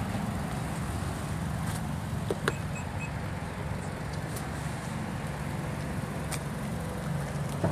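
Power liftgate of a 2015 Nissan Rogue closing: a click and three short warning beeps, then a few light clicks as it lowers, with a sharper click near the end as it shuts. A steady low hum sits under it.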